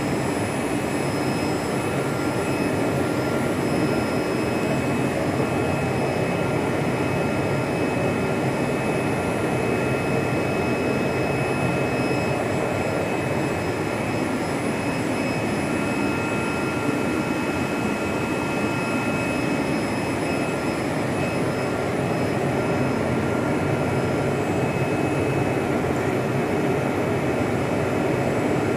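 CNC vibrating-knife cutting machine running as it cuts a drywall board: a steady, even rushing noise with several thin, high whining tones over it.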